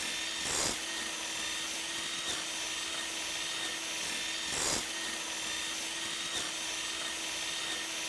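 A cordless rechargeable hand mixer's small motor runs steadily with a whine, its whisk whipping cream in a bowl. The sound swells briefly twice, about four seconds apart.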